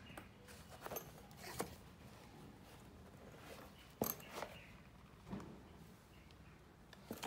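Canvas belt bag being handled: scattered faint rustles and light taps from the fabric, webbing strap and metal hardware, with the sharpest click about four seconds in.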